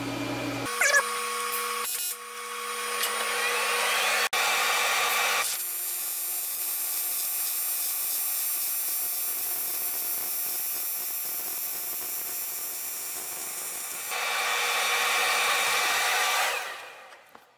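TIG welding arc on 7075 aluminium plate, buzzing and hissing steadily. Its tone and loudness shift about five seconds in and again near fourteen seconds, and it stops about a second before the end.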